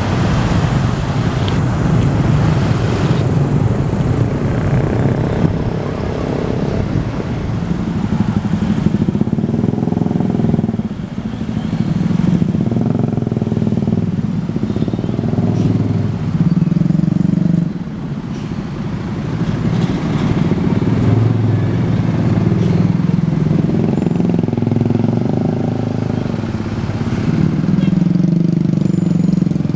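Road vehicle engines running and passing, the engine sound swelling and easing every few seconds.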